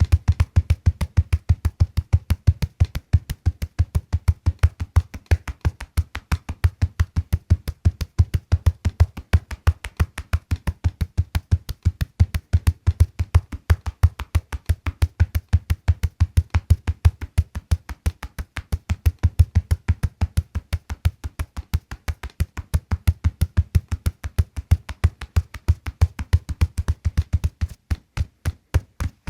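Loud, evenly repeated low thumps, several a second, in a steady rhythm that thins out and stutters near the end.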